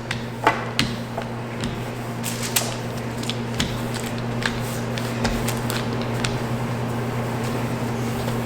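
Scattered light clicks and taps of kitchen handling while dough is worked on the counter, over a steady low electrical hum.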